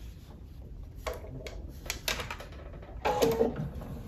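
Quilted fabric and binding being handled and positioned at a sewing machine: soft rustling with irregular light clicks and taps over a low steady hum, and a brief louder sound about three seconds in.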